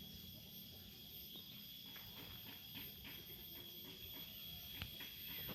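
Faint, steady high-pitched insect trilling, with a few scattered soft clicks.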